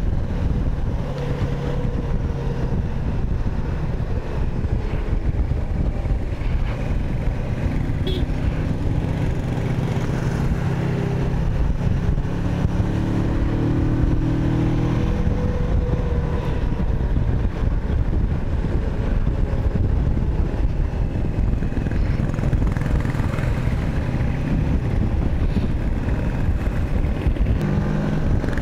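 Kawasaki Versys 650's parallel-twin engine running while riding, its pitch rising and falling a little with the throttle, over steady road noise.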